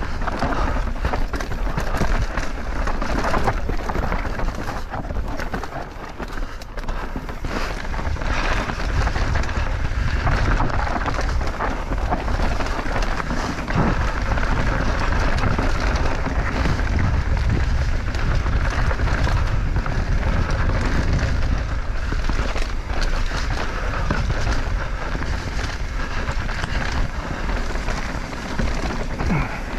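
Mountain bike descending a dirt singletrack, heard from a camera on the rider: continuous wind buffeting on the microphone over the crunch of tyres on dirt and a steady clatter of the bike over rough ground.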